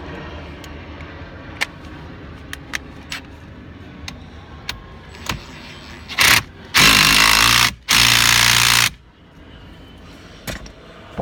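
Power impact tool hammering a fastener tight: one short burst, then two longer bursts of about a second each, after a few light clicks of parts being handled.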